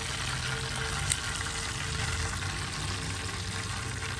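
Hot cooking oil sizzling steadily in a frying pan around a fried red snapper head, with one sharp pop of spattering oil about a second in.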